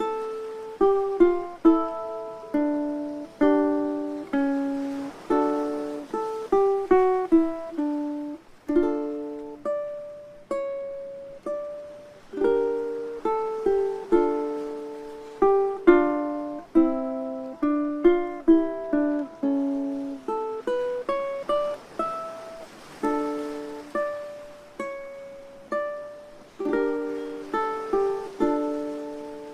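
Instrumental ukulele music: a gentle plucked melody over picked chords, each note ringing and fading.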